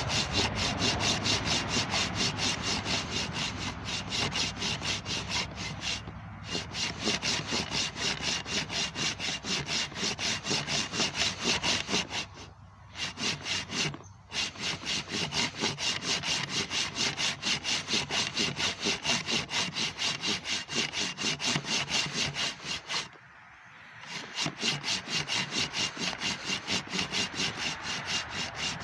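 Hand sawing through a log with the saw blade head taken off a pole saw, used in place of a chainsaw with a broken chain. Steady, rhythmic back-and-forth strokes of the blade cutting wood, stopping briefly a few times, the longest pause about 23 seconds in.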